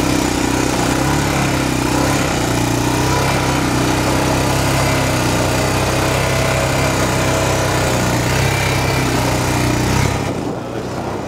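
ATV engine running steadily under way on a sandy trail, with wind and ride noise over it. About ten seconds in, the sound drops and the hiss falls away.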